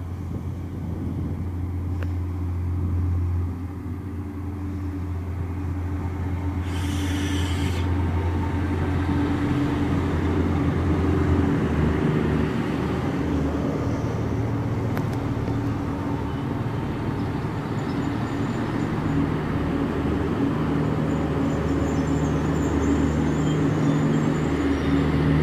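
Irish Rail CAF diesel multiple unit pulling into a station, its underfloor diesel engines humming steadily and growing gradually louder as it draws in alongside the platform. A brief hiss comes about seven seconds in.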